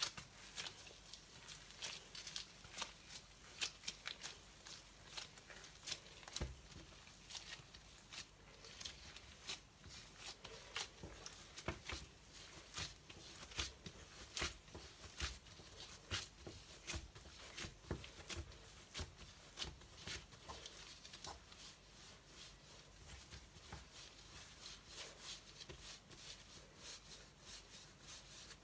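Latex-gloved hands kneading and rolling soft bun dough on a floured board: faint, irregular pats, slaps and rubbing, several a second.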